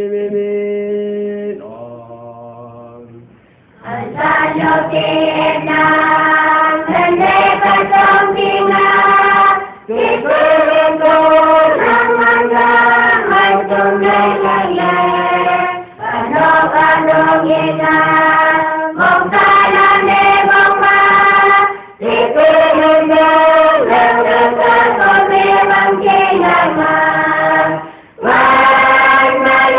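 A large choir singing unaccompanied in several parts, in phrases of about six seconds with short breath breaks between them. A couple of brief held starting notes come first, and the full choir comes in about four seconds in.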